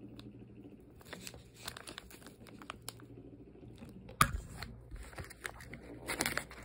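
Scissors crunching through a crumbly frozen cookie bar in its paper tray, with the wrapper crinkling. A sharp knock about four seconds in is the loudest sound.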